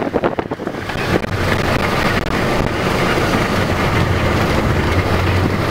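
Car driving on a wet dirt road, heard from inside the cabin: steady tyre and engine noise with a low drone that settles in about a second in, and a few knocks and rattles at the start.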